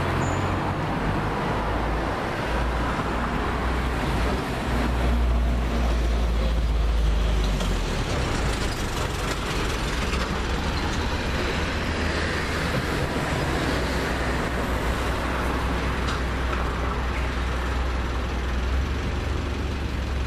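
Street traffic: cars and a light flatbed truck driving along the road below, a steady mix of engine and tyre noise with a deep rumble that swells for a couple of seconds about five seconds in.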